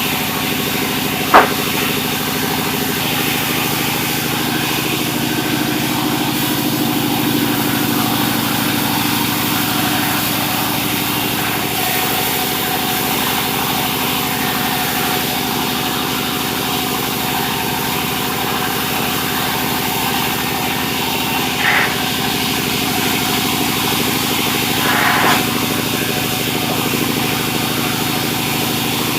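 Sawmill machinery running steadily with a constant engine drone. A single sharp knock sounds about a second in, and two brief louder noises come later on.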